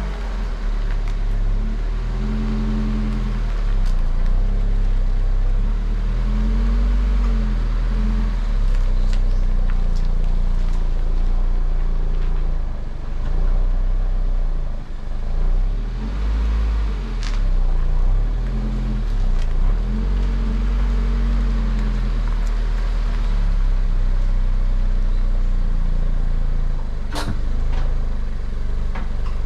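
Toyota GR86's 2.4-litre flat-four engine running through its exhaust, the engine note rising and falling again and again with the throttle. A sharp click sounds about 27 seconds in.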